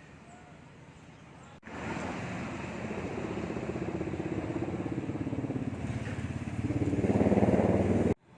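Motorcycle engine running close by with a fast, even throb, growing louder near the end as it nears; it starts and stops abruptly at edits.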